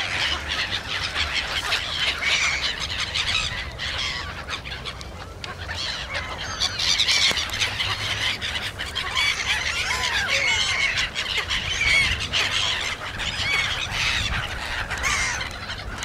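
A flock of black-headed gulls calling on and off throughout, many harsh overlapping calls from different birds at once.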